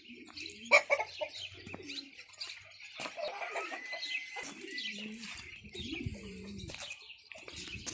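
A crowd of caged birds calling: many small birds chirping constantly, with lower calls of chickens and pigeons through the middle. A single sharp click just under a second in is the loudest sound.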